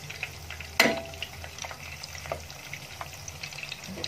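Spring rolls (lumpiang toge) sizzling and crackling in hot shallow oil, with a steady patter of small pops. About a second in, a metal spoon clinks once against the pan as the rolls are turned.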